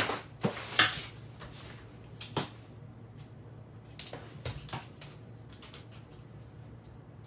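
Laminate flooring planks being handled and fitted: a brief rush of noise at the start, then scattered sharp clicks and knocks that thin out after about five seconds, over a faint steady low hum.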